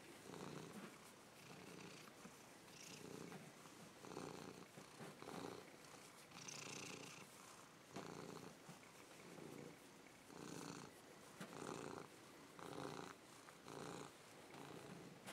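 Domestic cat purring faintly while being stroked, in a steady rhythm of soft swells about once a second.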